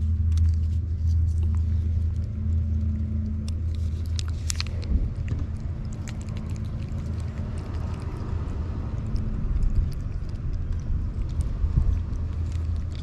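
A cat licks a squeeze-tube lickable treat, giving faint wet clicks and smacks, over a steady low rumble.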